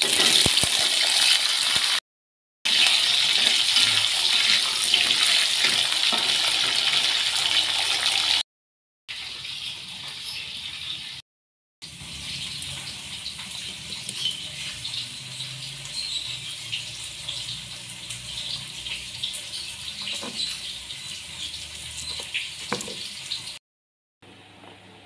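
Sliced jengkol (dogfruit) tipped into hot oil in a wok and frying with a loud, steady sizzle. After a few short cuts only a much softer hiss remains, with two light knocks near the end.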